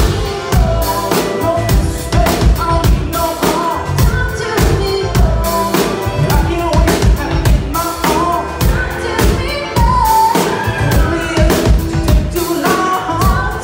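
Live rock band playing a song: sung vocals over a drum kit and electric bass keeping a steady beat.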